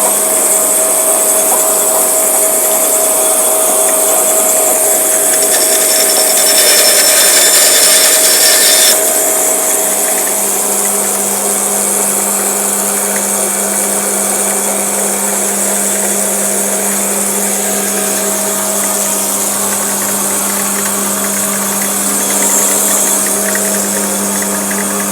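Electric motor of a frame-wiring machine running steadily with a constant hum, louder and harsher for a few seconds from about six seconds in.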